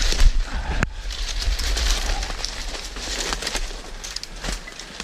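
Footsteps crunching through dry leaves and thin snow, with twigs and brush scraping past, over a low rumble on the microphone. A sharp snap comes just under a second in.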